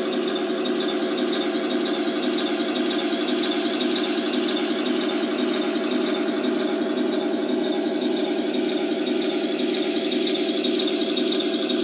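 Tamiya RC Tiger I tank's sound unit playing a steady tank-engine sound through its speaker as the model crawls slowly. Under it is a little whine from the Heng Long sealed all-steel gearboxes, with none of the rackety gear noise of stock gearboxes.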